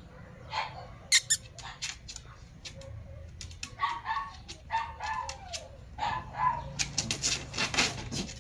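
Small toy poodles whimpering in a few short, falling cries. Near the end comes a quick run of rustling and flapping.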